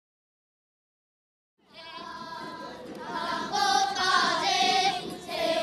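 Silence for about a second and a half, then a children's choir starts singing a song in unison, the melody sitting high.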